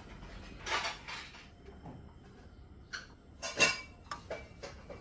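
Kitchenware being handled: two short rustling scrapes about a second in, then a run of sharp clinks and knocks of dishes, the loudest about three and a half seconds in.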